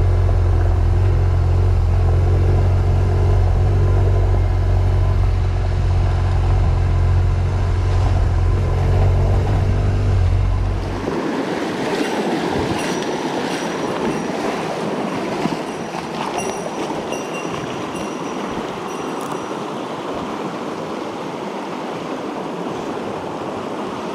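Motorcycle engine running at a steady cruise, a deep, even hum; the bike is the BMW R1200GS boxer twin. About eleven seconds in it cuts abruptly to a fast-flowing river rushing, a steady wash of water, with a few faint high chirps.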